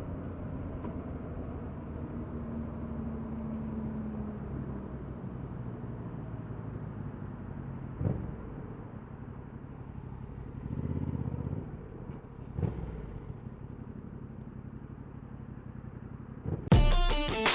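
Yamaha MT-07's parallel-twin engine with its stock exhaust running steadily, with a few short surges in the middle. Loud electric-guitar music comes in near the end.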